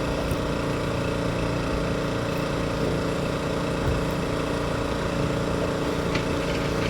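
A small engine running steadily, an even hum with several steady tones.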